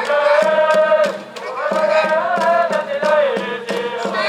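Stand cheering at a high school baseball game: a sustained melody with chanting voices over a steady drum beat of about three strokes a second.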